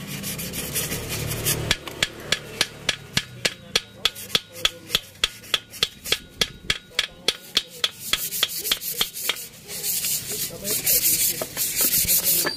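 A hand tool working metal against the cylinder bore of an Isuzu 4BC2 diesel engine block in quick regular strokes, with a sharp click about three or four times a second. The clicking gives way to a denser rasping rub for the last few seconds.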